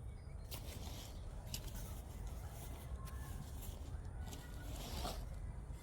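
Park ambience: a steady low rumble with a few faint, short whistled bird notes and some soft clicks.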